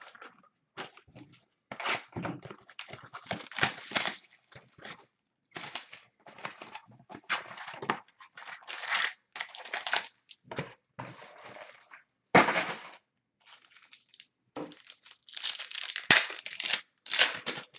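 Crinkling and tearing of a trading-card box and its foil pack wrappers being opened and handled by hand, in irregular bursts of rustling with short sharp crackles.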